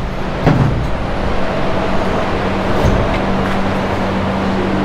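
An engine idling steadily: a constant low hum under an even rush of noise.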